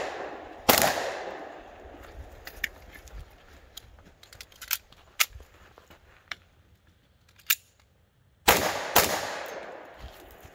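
Shots from a Colt Delta Gold Cup 10mm pistol: one loud shot with a long echoing decay about a second in, a few faint clicks and knocks in between, then two quick shots about half a second apart near the end.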